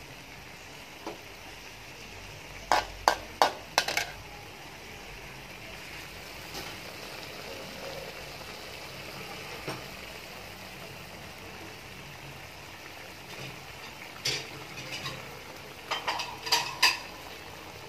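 A metal spatula scraping and knocking against a steel wok in short clusters, about three seconds in and again near the end, over a steady sizzle of squid frying in its own juices.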